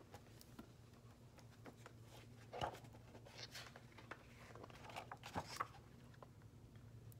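Faint paper handling as a hardcover picture book is opened and its pages turned: a few soft rustles and light page flaps, about two and a half, three and a half and five seconds in, over a faint steady low hum.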